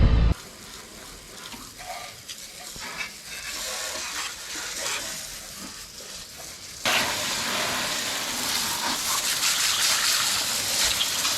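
Water spraying from a hose onto a ute to rinse off salt, softer and uneven at first, then about seven seconds in turning into a louder, steady hiss.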